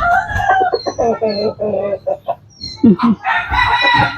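Roosters crowing and hens clucking: one long crow tails off in the first second, short clucks follow, and another crow starts about three seconds in.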